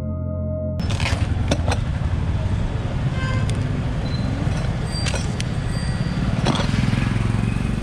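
Ambient music cuts off about a second in, giving way to a motor vehicle engine idling steadily, with scattered crinkles and taps as a cardboard parts box and its plastic wrapping are unwrapped and handled.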